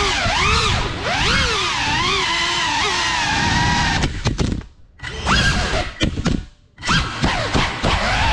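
FPV drone's brushless motors and propellers whining, the pitch sweeping up and down with throttle. Past the middle the whine cuts out twice for about half a second, then picks back up.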